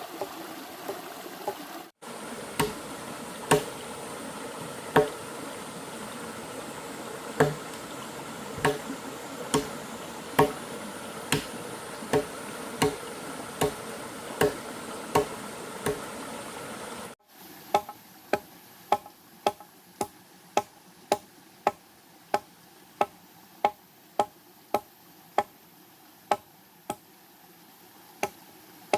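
Repeated knocks of a hand tool striking wood, about one every second and a half over a steady rushing noise. After a cut the knocks come quicker, about two a second, each with a short ring.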